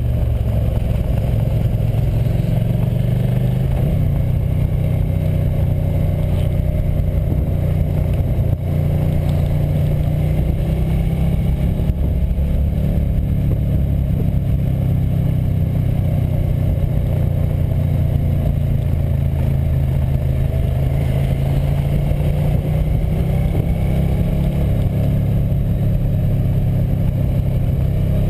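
Motorcycle engine running steadily under way, its pitch rising and falling a little with the throttle, close to a camera mounted on the bike.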